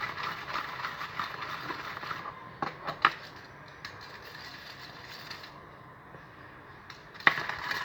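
Borax solution being stirred with chopsticks in a container: a steady scraping, rattling noise for about five seconds, with sharp knocks around three seconds in and again near the end.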